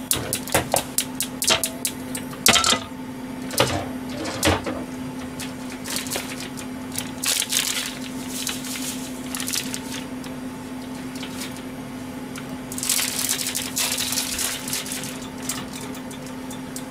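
Kitchen handling noise at a gas stove: sharp clicks and taps in the first few seconds, then about two seconds of crinkly rustling as a small paper packet is opened and shaken over a saucepan. Under it is a steady low hum.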